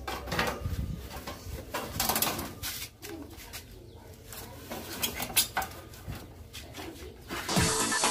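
Clanks, knocks and clicks of a window air conditioner's sheet-metal cabinet cover being fitted back over the unit and screwed down, with one sharper knock about two-thirds of the way in. Background music comes in near the end.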